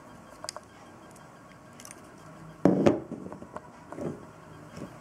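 Small plastic LEGO bricks clicking and rattling as they are handled and pressed onto a model, with a few light clicks and one louder knock against the table about two and a half seconds in.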